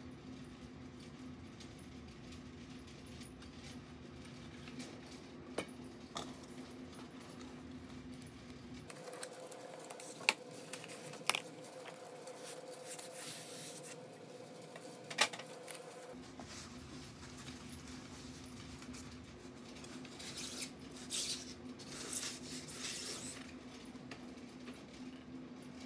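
Handling sounds of fiberglass antennas and a cardboard shipping tube on a workbench: a few light knocks and clicks, then a couple of seconds of scraping and rustling late on, over a steady low hum.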